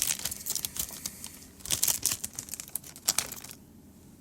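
Foil Pokémon booster pack wrapper being torn open and crinkled by hand, a dense crackling rustle for about three and a half seconds that then dies down.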